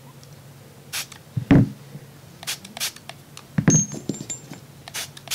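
Several quick squirts from a spray bottle of gun-cleaning solvent, each a short hiss, onto disassembled pistol barrels and slides. A heavier thump about a second and a half in, as a part or the bottle is set down on the mat.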